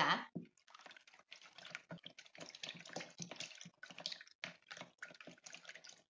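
A plastic measuring spoon stirring a watery cleaning mixture in a plastic measuring jug: irregular sloshing of the liquid with light clicks of the spoon against the plastic.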